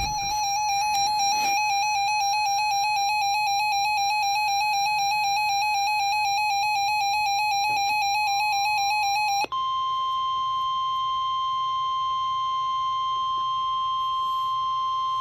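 Radioshack 12-382 weather radio's electronic alert alarm, a rapid warbling beep, for about nine and a half seconds. It cuts off and gives way to the steady NOAA Weather Radio 1050 Hz warning alarm tone played through the radio's speaker, which marks the start of the weekly test broadcast.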